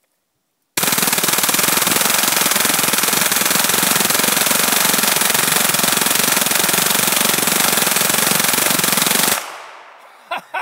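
M16 fitted with a belt-fed .22LR conversion upper firing one long full-auto burst: an unbroken stream of rapid .22 rimfire shots that starts about a second in, runs for about eight and a half seconds and stops abruptly, leaving a short echo dying away.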